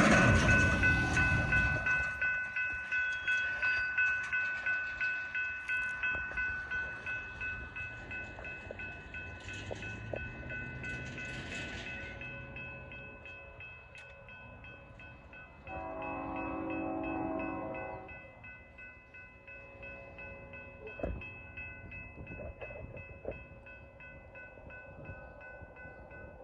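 Railroad crossing bell ringing about twice a second, fading from loud to softer. About sixteen seconds in, the approaching freight locomotive sounds a horn blast of about two seconds. A low train rumble sits under the first couple of seconds.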